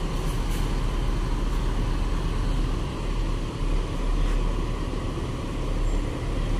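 Diesel engine of a large coach bus running as the bus pulls away at low speed, a steady low rumble.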